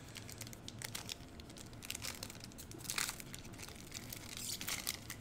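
Foil wrapper of a Panini Prizm basketball card pack crinkling as it is handled and torn open: a string of short crackles, the loudest about three seconds in and again near the end.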